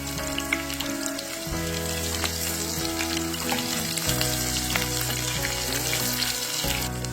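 Food frying in a pan, a steady sizzle with many small crackles and pops, over soft background music.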